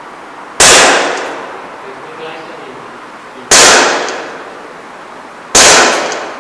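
Three shots from a CZ P-09 gas blowback airsoft pistol, about three seconds and then two seconds apart. Each is a sharp crack followed by a short echo that dies away.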